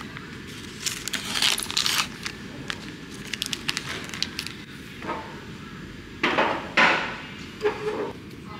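Plastic film being peeled off a plastic ready-meal tray, crinkling and crackling in short bursts, with louder rustles in the last few seconds.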